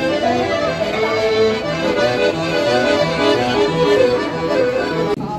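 Accordion played by a street busker: a melody of held notes over steady, evenly repeated bass notes, cut off abruptly near the end.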